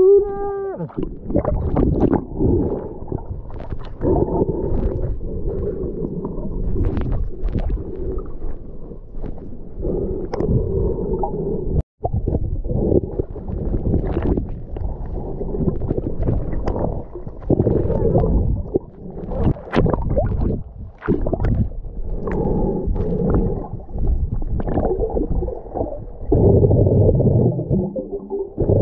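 Muffled underwater sound picked up by a submerged action camera: low, rumbling water noise with bubbling, sloshing and irregular knocks against the camera housing. The sound cuts out for an instant about twelve seconds in.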